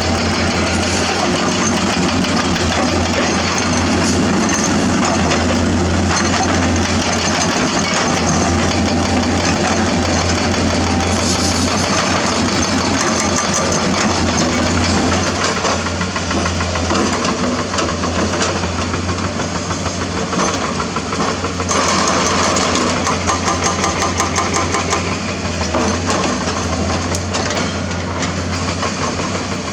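Diesel engine of a hydraulic crawler excavator running steadily under a dense clatter; from about halfway the sound rises and falls in level more as the machine works.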